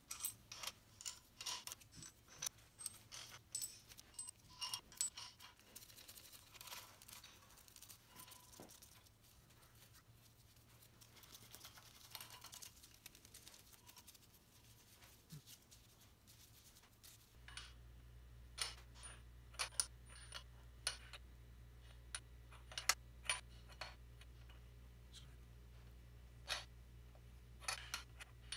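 Small steel nuts, washers and a wrench clinking and tapping against the alloy cylinder heads of a Vincent V-twin engine as the head nuts and brackets are fitted by hand: a quick run of light metallic clinks at first, then scattered sharp clicks with a low steady hum underneath from about seventeen seconds in.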